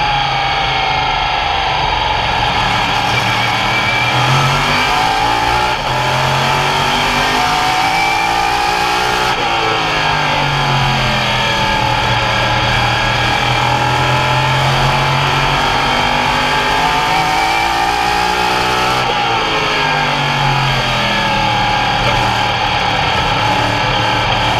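Open modified race cars running at speed in a pack, engines loud and continuous. The engine note sinks and climbs back about every ten seconds as the cars ease off and get back on the throttle.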